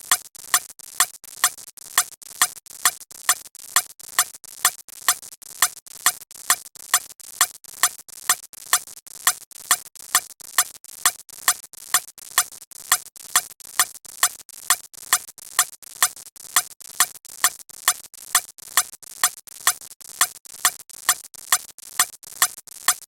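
A steady train of sharp electronic-sounding clicks, about two a second, evenly spaced and unchanging.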